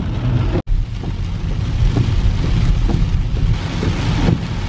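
Steady low rumble of a car driving on a wet road in heavy rain, heard from inside the cabin, with the hiss of rain and spray on the car. The sound cuts out for an instant about half a second in.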